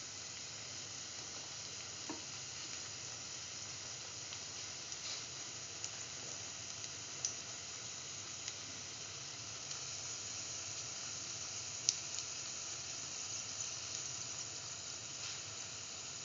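Split chickpea fritters frying in hot oil in a pan: a steady sizzle with a few sharp crackles of spitting oil.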